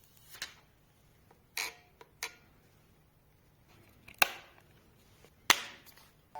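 Handling noise from an unboxing: about six short, sharp clicks and knocks of hard objects being picked up and set down, with the two loudest knocks in the second half.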